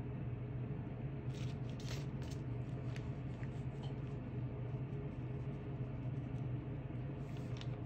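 A steady low hum runs throughout. From about a second in come scattered faint light clicks and taps of a piping bag and toothpick being handled over a cookie.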